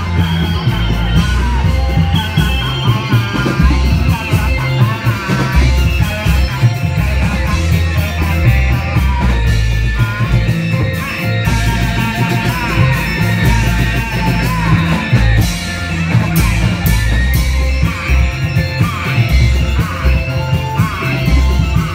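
Loud, bass-heavy live music for a Reog Indramayu troupe's dance, with pounding drums and a singer's wavering melody.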